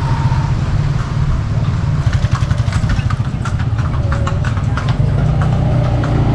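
A horse's hooves clip-clopping on a hard road, a quick run of clops through the middle. A vehicle engine runs steadily underneath.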